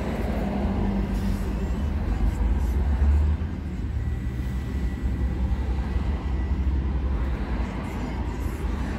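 Ford Excursion's 6.8-litre V10 running on the move, a steady low drone of engine and road noise.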